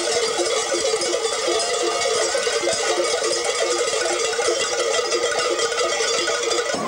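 Hand-held cowbells shaken together in a steady, dense jangle with a regular beat.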